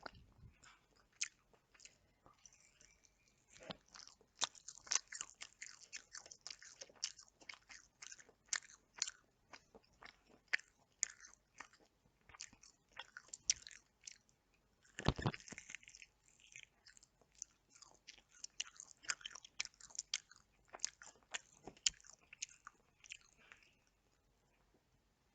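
A person chewing and biting into chicken, with many irregular wet clicks and crunches and one heavier bite about fifteen seconds in. The chewing dies away near the end.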